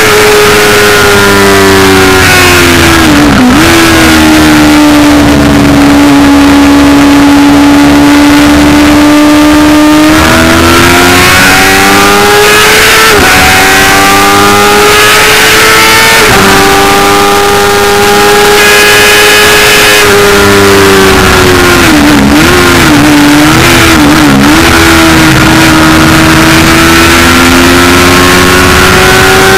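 Racing sidecar's engine at race pace, heard onboard. Its pitch drops sharply about three seconds in, holds steady, then climbs in steps through the gears. A little past two-thirds of the way it wavers through quick downshifts, then rises again near the end.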